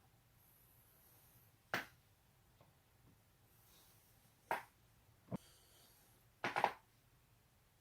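Neck joints cracking: a single sharp crack, then two more a little under a second apart, and a quick run of several cracks toward the end.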